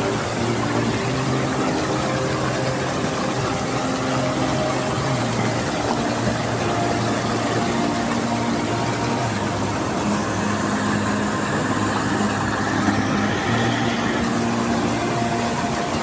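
Steady, loud rush of flowing river water.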